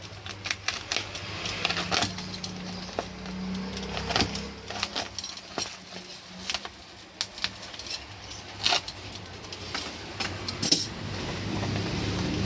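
Parcel packaging being opened by hand: irregular rustles, crinkles and sharp clicks, over a low steady hum.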